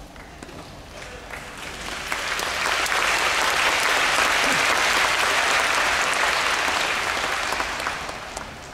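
Arena crowd applauding: the clapping swells over the first couple of seconds, holds, then dies away near the end.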